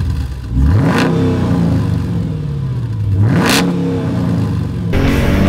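Mercedes-Benz ML55 AMG's 5.4-litre V8 exhaust, idling and blipped twice. Each rev rises quickly and falls back to idle. The engine sound breaks off suddenly near the end.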